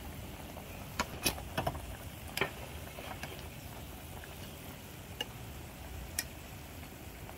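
Metal spoon and chopsticks clinking against bowls and a steel soup pot while noodles are served: four sharp clinks within the first couple of seconds and two more later, over a low steady hum.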